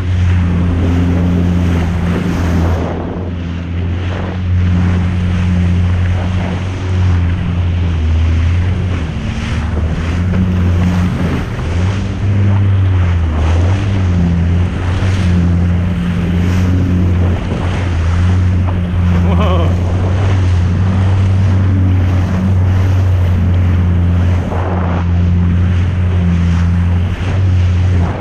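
Jet ski running at speed: a steady low engine drone that shifts slightly in pitch, under the rush of spray and wind on the microphone.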